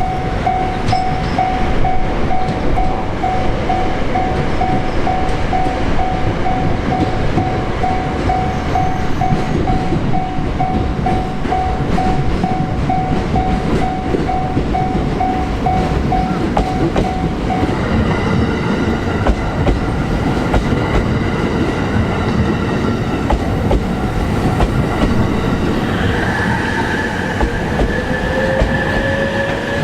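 A train passing over a Japanese level crossing, with a continuous heavy rumble and wheel clatter. The crossing's electronic warning bell dings at a steady rate, about two strokes a second, and stops about two-thirds of the way through while the train keeps running. Near the end, a high wheel squeal rises over the rumble.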